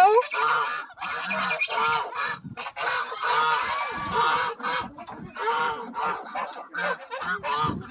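A flock of domestic geese honking and calling over one another in many short, overlapping calls.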